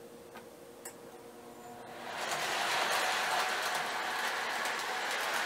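MTH Rail King O-gauge die-cast 4-8-4 Northern model steam locomotive running on the track, its wheels rattling and clicking on the rails. The sound swells about two seconds in as the train comes closer, then runs on steadily.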